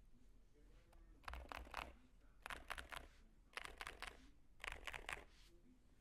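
Akko ACR59 custom mechanical keyboard being typed on in four short, quick runs of keystrokes about a second apart.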